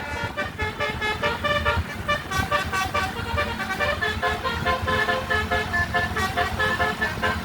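Basuri telolet multi-tone bus horn playing a quick melody of short, overlapping pitched notes, with a low rumble underneath.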